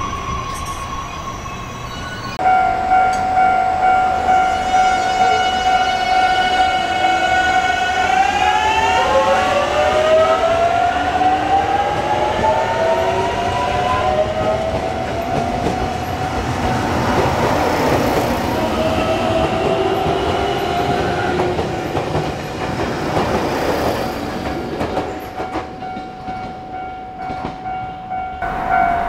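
Electric train pulling away: its motors hold a steady whine, then several tones rise in pitch together as it picks up speed. This gives way to running noise and rhythmic wheel clatter near the end.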